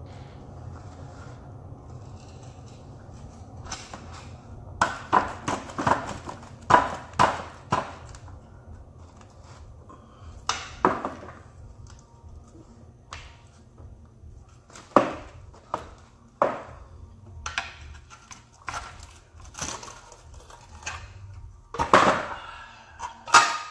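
Metal tools and transmission parts clinking and clanking against each other in irregular bursts of sharp knocks with short ringing, as the gearbox is worked apart by hand. A low steady hum runs underneath.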